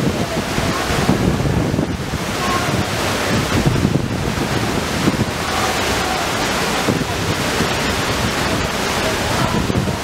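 Katekh waterfall, about 18–20 m high, pouring into its rock plunge pool: a steady, loud rush of falling water.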